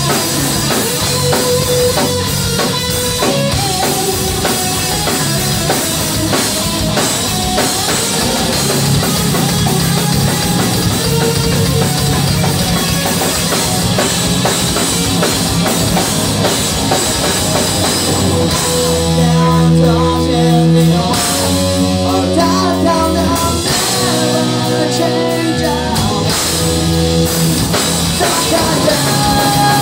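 Live rock band playing: electric guitars, bass and drum kit at full volume. About two-thirds of the way through the drums thin out for several seconds while held guitar chords ring, then the full band comes back.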